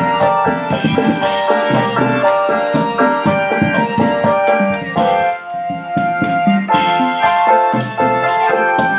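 Obrog street music: an electronic keyboard playing a melody of held notes over a steady beat of hand drums.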